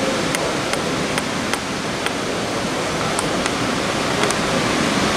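Model train running past on the layout: a steady rushing noise with faint light clicks, about two a second at first and then more scattered.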